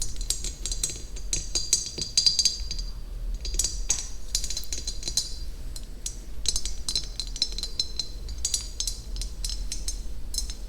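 Bursts of fast, light clicking taps on a hard object, each burst lasting about a second, repeating with short pauses.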